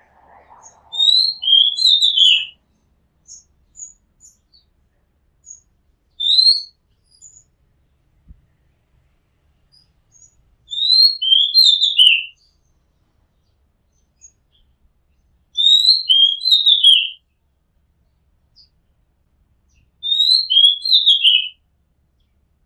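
Oriental magpie-robin singing: a short phrase of clear, down-slurred whistled notes, repeated about every four to five seconds, with a brief single note in between.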